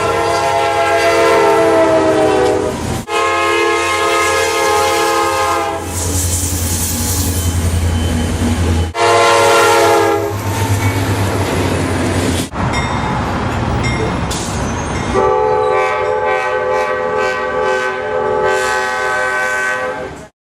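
Train horn sounding a series of long chord blasts, with train running noise in the gaps. The blasts are joined by several abrupt cuts.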